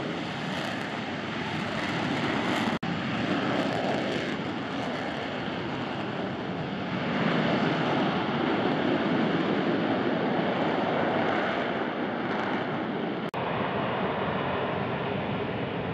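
F-35B Lightning II hovering in short-takeoff/vertical-landing mode, its F135 engine and shaft-driven lift fan giving a steady, dense jet rush that grows louder about seven seconds in. Two split-second gaps break the sound.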